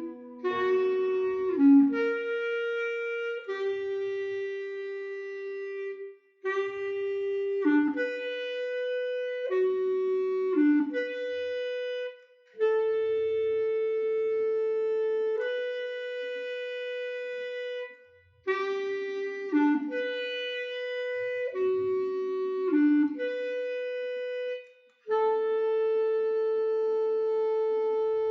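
Slow instrumental melody on a clarinet-like woodwind tone: held notes and short steps in phrases, each broken off by a brief pause about every six seconds, the last phrase ending on one long note.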